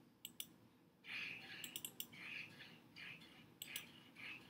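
Faint clicks from working a computer's mouse and keyboard, in small groups: two near the start, a quick run about a second and a half in, and another near the end.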